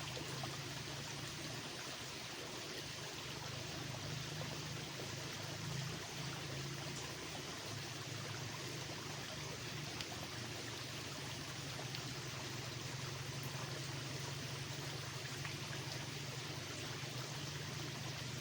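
Steady rushing, water-like noise over a low continuous hum, with no clear bird calls.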